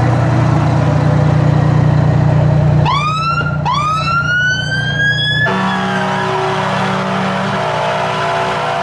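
Fire trucks passing at close range: an engine running steadily, then two rising siren whoops about three seconds in, the second cut off sharply, followed by a steady horn blast of about three seconds.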